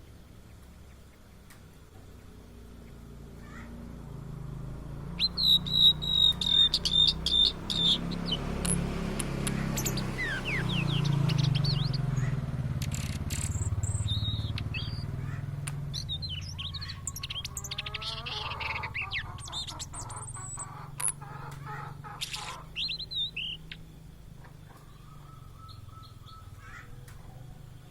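Blue-and-white flycatcher singing. A quick run of high repeated notes about five seconds in is followed by scattered chirps and gliding whistles, over a low background hum.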